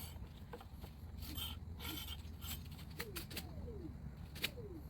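Scattered light clicks and scrapes of hand work on an electric scooter's rear brake, over a steady low hum, with several short chirps falling in pitch.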